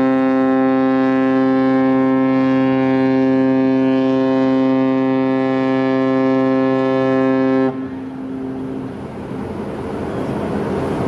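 Ship's whistle of the high-speed catamaran ferry Alakai: one long, deep horn blast at an unchanging pitch, sounded on departure, that cuts off about eight seconds in. A steady rushing noise follows.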